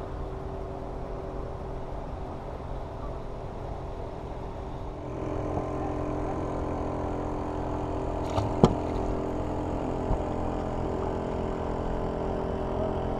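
A boat motor running steadily, a hum of several even tones that gets louder about five seconds in. A sharp knock comes about eight and a half seconds in, with a smaller one near ten seconds.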